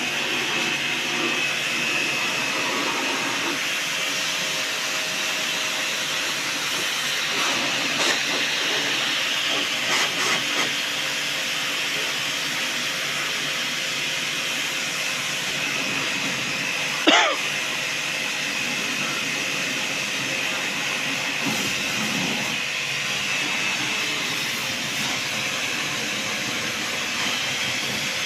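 Steady, unbroken hiss from a machine at work during window air conditioner servicing, with a faint high whine held under it. A single brief knock sounds about 17 seconds in.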